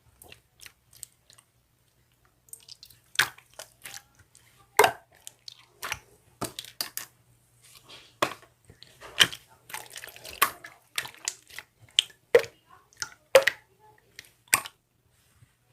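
Slime being squeezed and poked by hand: irregular sticky clicks and wet pops, several a second.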